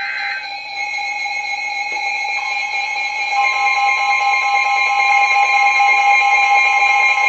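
Emergency weather alert tones from weather radios, several steady alarm tones sounding over one another and growing louder. A further tone joins about two seconds in. The tones announce an incoming severe thunderstorm warning.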